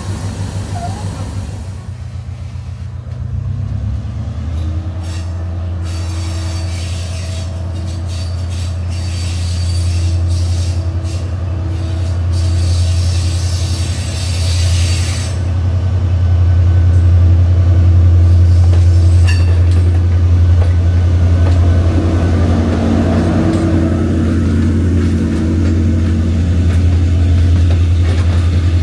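Sri Lanka Railways Class S13 diesel multiple unit passing close by: a steady low diesel drone that grows louder through the first half as the power car approaches, then holds. Scattered clicks of wheels over rail joints are heard in the first half.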